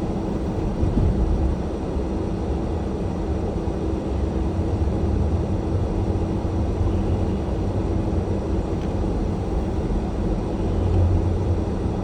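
Low, steady rumble of a car heard from inside its cabin on an icy, snow-covered road, with a constant hum underneath; it swells slightly near the end.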